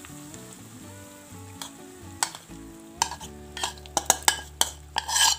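Steel spoon scraping against a plate while coarse-ground chana dal is pushed off into a kadhai, with a quick run of sharp taps and scrapes in the last couple of seconds as the plate is emptied over the pan.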